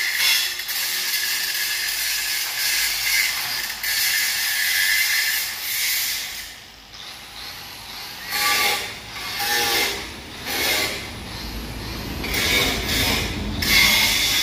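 Handheld angle grinder grinding steel truck bodywork, a steady high-pitched hiss for about six seconds. It then stops, and the grinder comes back in several short bursts over the second half.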